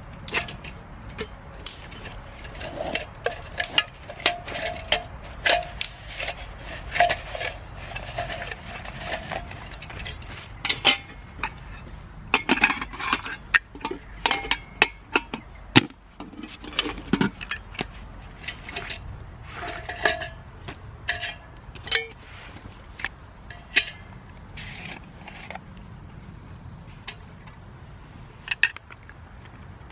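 Metal camping gear clinking and jangling irregularly, as from cookware and kit jostling on a loaded pack while walking, over a steady low rumble.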